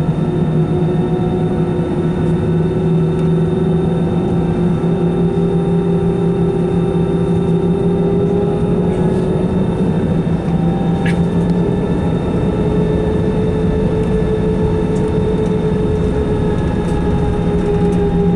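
Airbus A320 jet engines heard from inside the cabin during departure: a loud, steady drone with a low hum and higher tones that slowly drift in pitch. There is a brief click about eleven seconds in.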